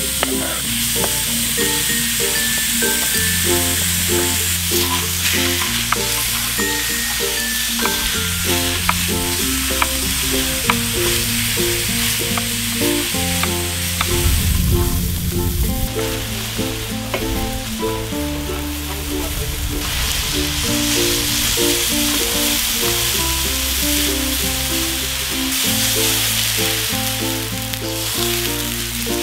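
Diced meat sizzling and being stirred on a large round griddle pan, with a louder rush about halfway through as diced vegetables are tipped in from a steel pot. Background music with a melody and bass line plays throughout.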